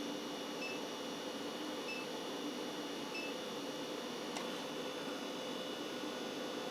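Induction forge running with a steady electrical hum and fan noise, plus high tones. A short high beep sounds about every second and a quarter, three times, then a single sharp click near the middle.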